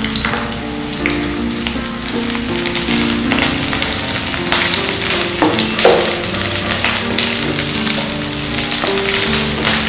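Lemongrass and cinnamon sticks sizzling and crackling in hot coconut oil in a non-stick pan, stirred and pushed around with a spatula. Soft background music plays over it.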